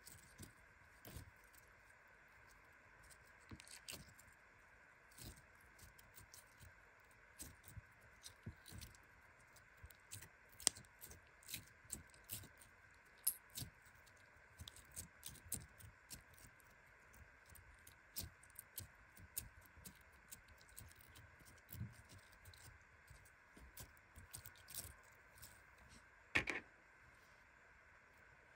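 Pearlescent slime being squeezed, stretched and kneaded by hand: scattered quiet clicks, pops and squelches, a few of them louder, over a faint steady hum.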